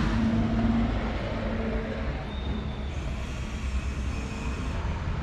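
Busy road traffic: vehicle engines running, a steady low rumble of passing cars and buses.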